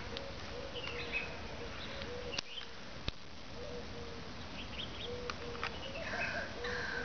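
Outdoor background of birds calling: short repeated notes and scattered chirps, with a couple of faint clicks in the first half.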